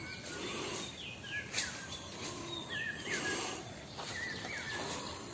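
A forest bird giving short whistled calls that drop in pitch, repeated every second or two over a faint steady background hiss.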